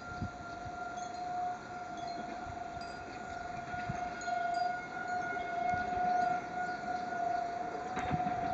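Outdoor tornado warning siren sounding a test, holding one steady pitch that slowly swells and fades in loudness.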